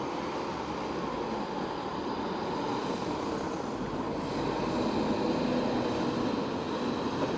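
MAN TGS 8x8 heavy-haulage tractor unit's diesel engine running under load as it pulls a loaded low-loader trailer away from a stop, a steady drone that grows louder about four seconds in, mixed with passing van traffic.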